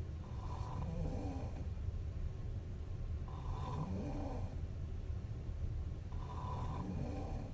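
A young woman snoring in her sleep: three slow snoring breaths, each about a second long and spaced about three seconds apart, over a steady low hum.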